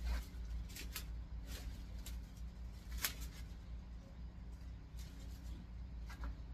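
Pumpkin vines and dry leaves rustling, with several short sharp crackles and snaps, as the plants are pulled up and cleared by hand. A steady low hum runs underneath.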